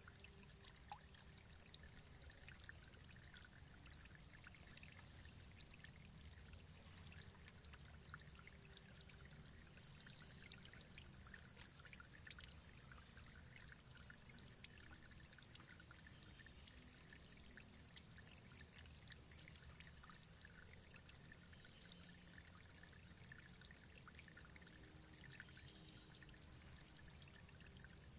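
Faint, steady running water, a continuous hiss dotted with many small drips and splashes.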